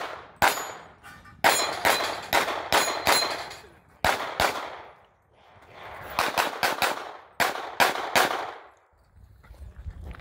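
Handgun shots fired in fast strings of pairs and singles, two strings in all with a short lull between them, each shot sharp.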